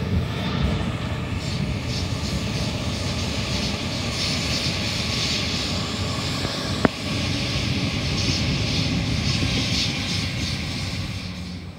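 Sydney Trains Waratah electric multiple unit passing underneath: a steady rumble and hiss from its motors and from the wheels on the track, with a single sharp click about seven seconds in, fading near the end.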